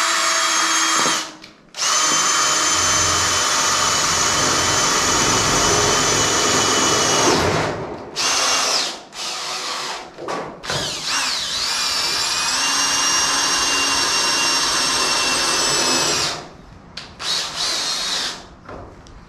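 Power drill driving self-tapping screws through sheet steel: the motor whines in long runs of several seconds, broken by a few short bursts, with a brief dip and rise in pitch about halfway through.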